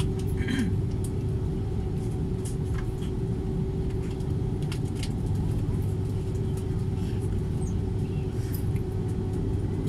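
Steady low rumble and hum of a jet airliner's cabin while the aircraft waits on the taxiway, with one steady humming tone running through it.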